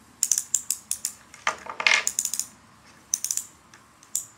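Short runs of rapid clicks from a toy low-level crane's mechanism being turned by hand, with a brief scraping rub about a second and a half in.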